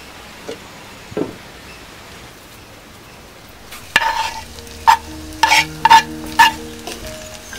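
Chopped spiny gourd frying in a pot with a low steady sizzle. In the second half, coconut sambal is knocked off a plate into the pot: about five sharp taps with a short ring, the loudest sounds here.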